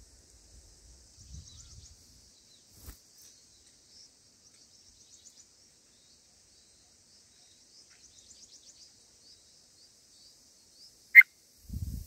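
Bulbul nestlings (red-vented bulbul) giving thin, high begging chirps in quick runs while the parent feeds them, then one loud, short chirp near the end.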